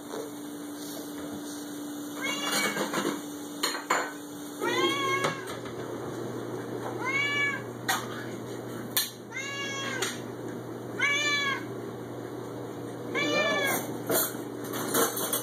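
Adult male Siamese cat meowing loudly and repeatedly: about six long meows a few seconds apart, each rising and then falling in pitch. A few sharp clicks fall between them.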